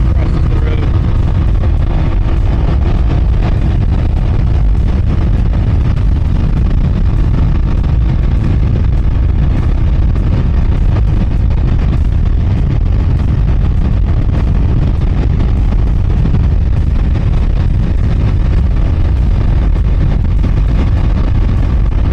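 Three-wheeled Can-Am Ryker running at road speed, its engine and a steady wind rush on the microphone blending into one loud, heavy low noise.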